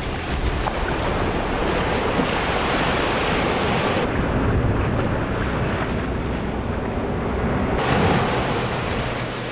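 Small surf waves washing up the beach, with wind rumbling on the microphone.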